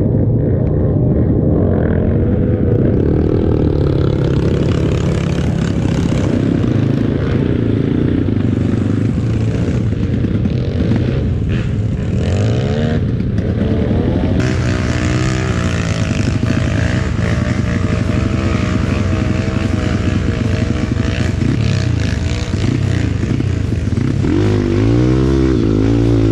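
Trail bike engine running under load on a muddy dirt track, its pitch rising and falling continually as the throttle is opened and closed.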